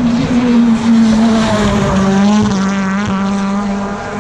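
BTCC touring cars racing past at speed, their two-litre turbocharged four-cylinder engines running at high revs. The engine note steps down about two seconds in and wavers in pitch.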